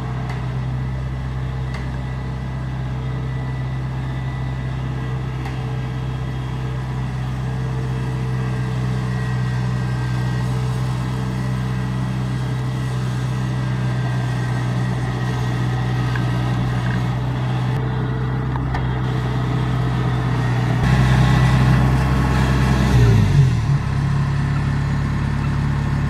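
Kubota DC70 combine harvester's diesel engine running steadily as the machine drives on its tracks. It grows louder about twenty seconds in, with a brief waver in engine pitch a couple of seconds later.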